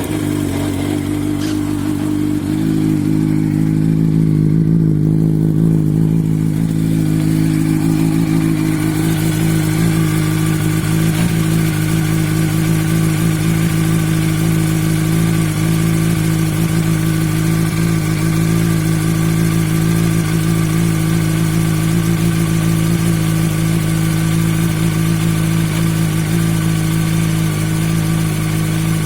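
2006 Yamaha R1's inline-four engine idling steadily just after starting, settling a couple of seconds in, with the strange noise that the owner puts down to the clutch.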